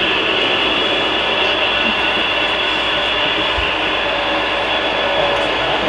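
HO scale model freight train of refrigerated boxcars rolling along the track, a steady, even rolling noise of the cars' wheels on the rails.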